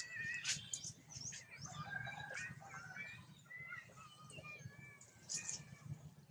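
Baby macaque giving a run of short, high squeaks and chirps, some sliding up or down in pitch, bunched in the first three seconds and again about five seconds in: distress calls while an adult macaque holds it down.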